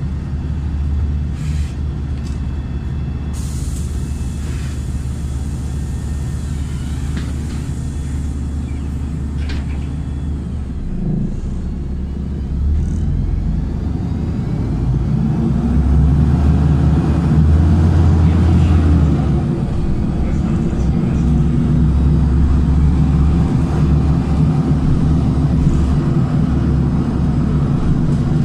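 LiAZ 5292.67 city bus with a YaMZ-53624-40 natural-gas engine, heard from inside the cabin: a steady low engine drone, with a short air hiss about three seconds in. From about twelve seconds in the engine note rises and grows louder as the bus pulls away and gathers speed.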